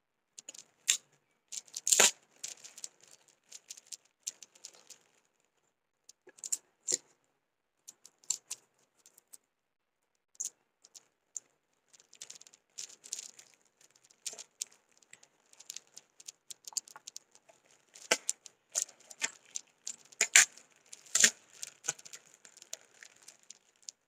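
Taped-up parcel packaging being torn open and crinkled by hand: irregular rips, rustles and sharp crackles, with short pauses between.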